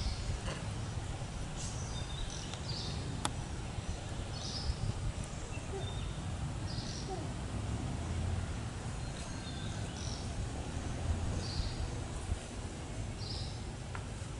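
Forest ambience: short high chirps repeating about once a second over a steady low rumble, with a single sharp click about three seconds in.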